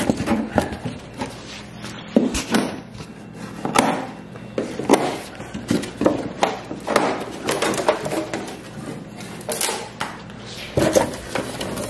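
Plastic packing straps cut loose and a plywood lid lifted off a long cardboard shipping box: an irregular string of knocks, snaps and scrapes from wood and cardboard being handled.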